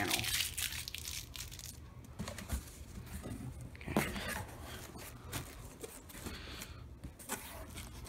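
Cardboard box flaps being pulled open by hand, packing tape tearing free and the cardboard rustling and scraping in irregular bursts, with the sharpest rip about four seconds in.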